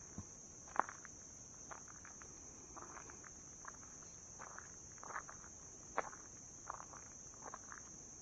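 Steady high-pitched drone of insects such as crickets, with irregular soft taps or crunches every half second to a second.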